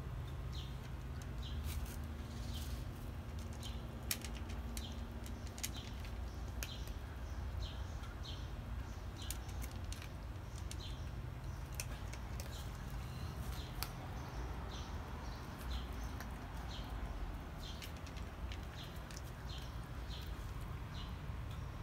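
A cat crunching dry kibble, with irregular sharp crunches, while a bird chirps a short high note about once a second over a steady low outdoor hum.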